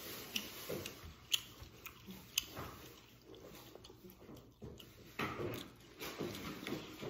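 Close-up mouth sounds of eating and chewing food, soft and irregular, with a few sharp clicks in the first two and a half seconds.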